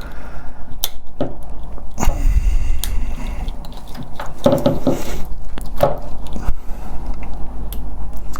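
Plastic parts of a wireless car charger being handled and turned over by hand: scattered clicks, taps and knocks.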